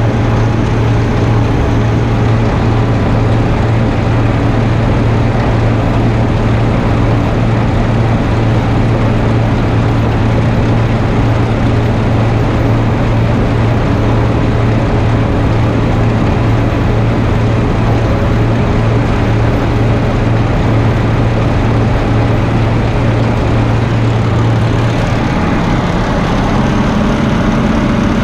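Heavy farm machinery engine running steadily with a strong low drone. About 25 seconds in, the engine note changes to a higher hum.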